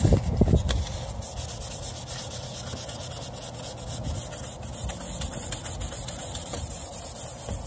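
Wet 600-grit sandpaper rubbed back and forth by hand over a plastic headlight lens, a steady soft scratchy hiss. A brief low bump right at the start.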